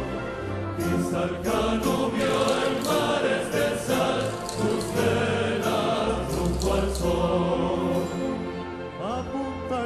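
A male choir sings a Canarian Christmas carol (villancico) in harmony, with guitars and lutes strumming beneath.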